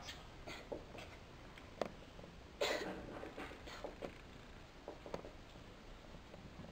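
Faint marker-on-whiteboard sounds: a few light taps and scratches as lines are ruled and words written, with a louder short rasp about two and a half seconds in.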